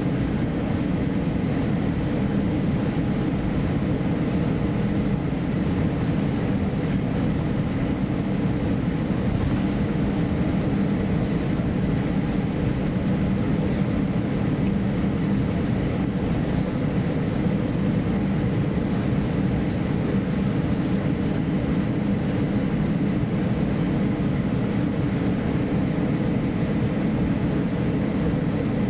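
Steady low cabin rumble inside an Airbus A350-900 as it taxis, with a faint steady whine above it.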